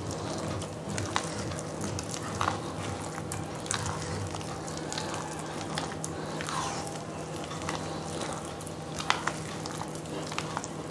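A hand squishing and kneading thick, wet palmyra palm pulp batter in a stainless steel bowl: steady wet squelching with scattered small clicks.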